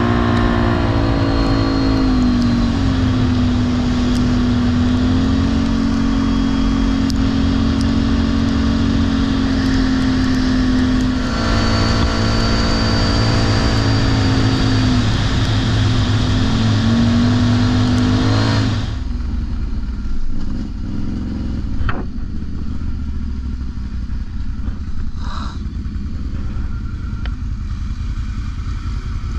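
A vehicle engine running under way, its pitch shifting up and down with speed, then dropping away about 19 seconds in to a quieter rumble with a few clicks.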